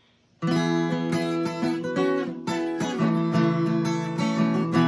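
Acoustic guitar with a capo, strummed chords that start abruptly about half a second in and keep a steady rhythm.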